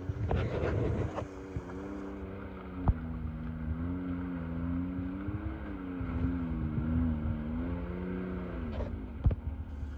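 Can-Am Maverick X3 side-by-side's engine running at low revs as it crawls down a muddy rutted trail, its pitch rising and falling gently. There is a brief rush of noise in the first second, and two sharp knocks come about three and nine seconds in.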